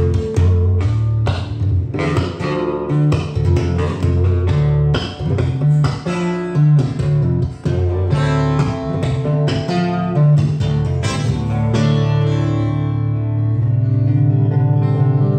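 Live instrumental guitar jam: quick plucked notes over a bass line, settling into longer held notes near the end.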